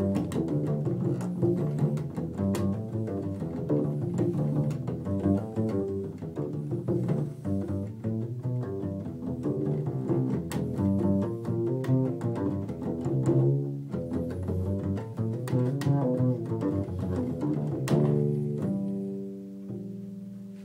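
Solo upright double bass played pizzicato: an improvised line of plucked notes in a steady stream. Near the end a low note is left to ring and fade.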